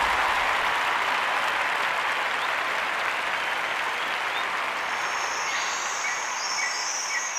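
Applause, a dense even clapping that slowly fades. From about five seconds in, short high chirps begin over it and repeat.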